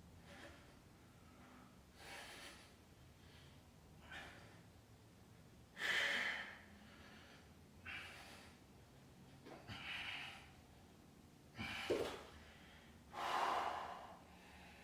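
A person breathing hard from exertion: a sharp, noisy breath about every two seconds, louder in the second half.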